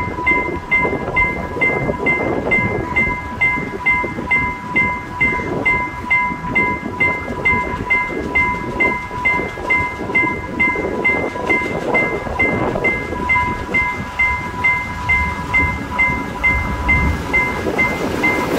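Railway level crossing warning alarm ringing in a fast, even pulse, about two strokes a second. Under it, the rumble of an approaching diesel train grows louder near the end.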